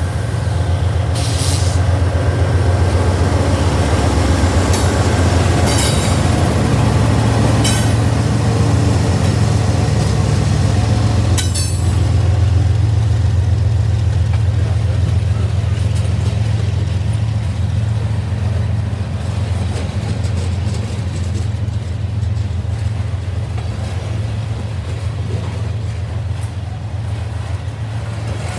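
Norfolk Southern diesel locomotive passing with a deep, steady rumble, followed by the trash train's container cars rolling past on the rails. A few short, sharp high-pitched sounds come from the wheels and cars in the first twelve seconds.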